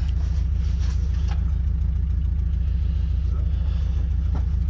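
Truck engine idling: a steady low rumble at an even level, with a few faint knocks and rustles of gear over it.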